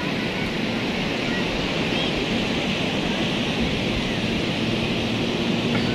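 Ocean surf breaking on the beach, a steady rush of high waves, with wind buffeting the microphone.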